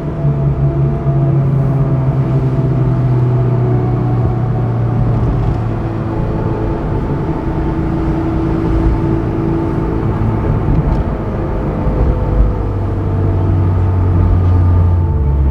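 Honda S2000's 2.2 L F22C1 four-cylinder engine running steadily while driving, its pitch easing slowly lower as the revs drop, over tyre and road rumble.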